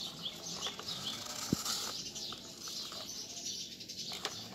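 Small birds chirping in short, quick high notes, mixed with light clicks and scrapes from a plastic toy excavator being pushed through dirt.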